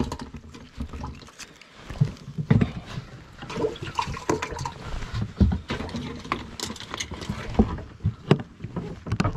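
Irregular knocks, clatters and water splashes as a freshly landed bass is handled aboard a bass boat.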